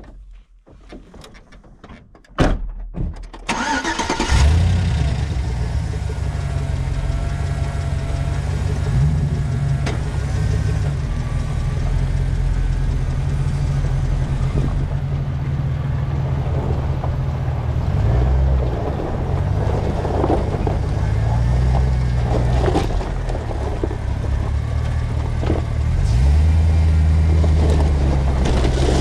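A GMT800 pickup's engine starts about three seconds in after a few knocks, then runs steadily, with the revs rising and falling now and then as the truck is driven through the wash.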